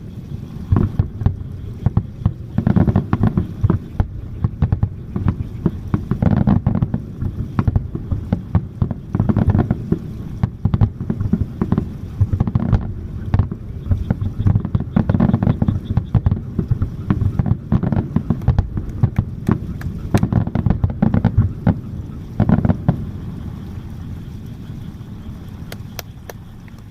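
Fireworks display: aerial shells bursting in quick succession, a dense run of booms and crackles that thins out and quietens near the end.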